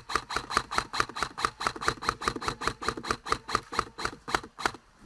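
Airsoft gun firing one long continuous burst at about eight shots a second, each shot a sharp crack, stopping near the end.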